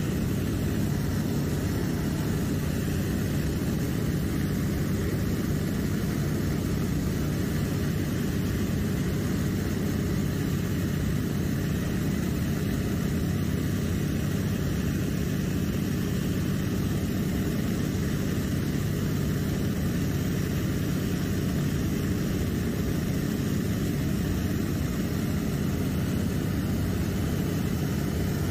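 Seaplane's propeller engine droning steadily in flight, heard from inside the cabin: a low, even drone that holds the same pitch and loudness throughout.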